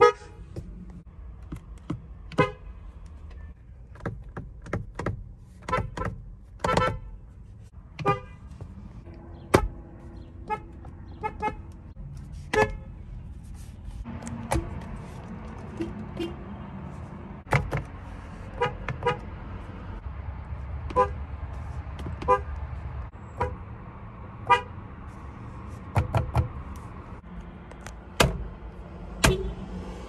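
Car horns tapped in many short toots, one after another: an Acura's horn first, then, after a change about halfway through, a Toyota's.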